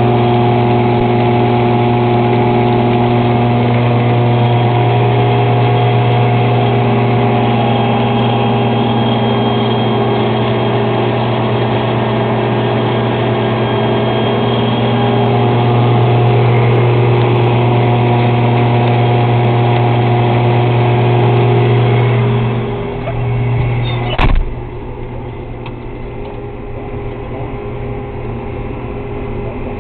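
Self-propelled pea harvester running steadily at work, a loud machinery drone with a strong low hum. About three-quarters of the way through there is a sharp thump, and after it the drone is quieter and duller, as heard from inside the harvester's cab.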